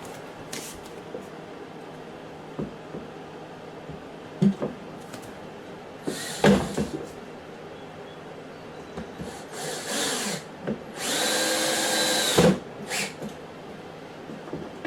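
Cordless drill/driver driving wood screws into drawer fronts, run in short bursts with the longest, steady whir of about a second and a half near the end. A few sharp knocks from handling the wood and the drill come in between.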